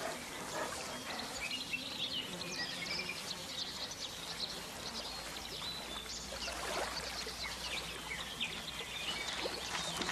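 Lake water washing over a pebble shore, with many short, high bird calls over it.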